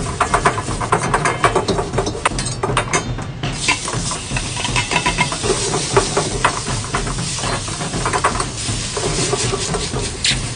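Stir-frying in a wok: food sizzling and hissing, with frequent clanks and scrapes of a metal ladle against the wok.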